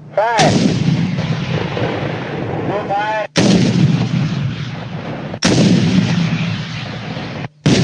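Shoulder-fired anti-tank weapons firing: three loud blasts a couple of seconds apart, each followed by a long rumbling echo that breaks off sharply. A fourth blast starts at the very end.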